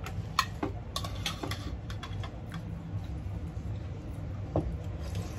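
Cutlery clicking lightly against ceramic bowls and plates while eating, a few scattered ticks, most in the first second and one more near the end, over a low steady hum.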